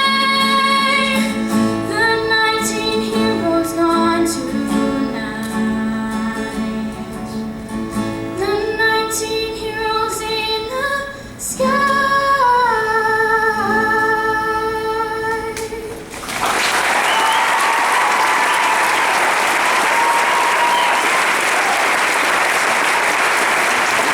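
A female singer with guitar accompaniment sings the final phrases of a song, with long held notes. About two-thirds of the way through the music ends and an audience breaks into steady applause.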